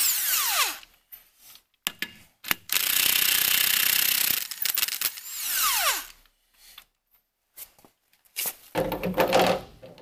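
Impact wrench spinning already-loosened lug nuts off the wheel studs, in three short trigger pulls. Each of the first two ends in a falling whine as the motor winds down, and there are a couple of sharp clicks between them.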